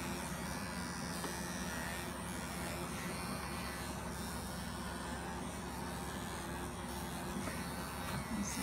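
Handheld electric animal clippers running with a steady buzz, shearing angora rabbit wool close to the skin.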